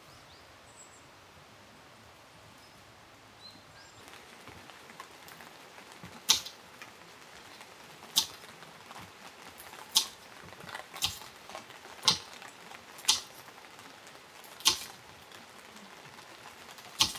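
Heavy water drops tapping one at a time at irregular intervals, about eight sharp taps over a light patter, like drips falling onto a tent or tarp during rain.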